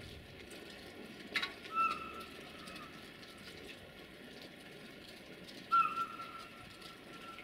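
Two blasts of the whistle on a 060-DA (LDE2100) diesel locomotive, each a single high steady tone. The first starts about a second and a half in and lasts over a second; the second starts near the end and runs on past it.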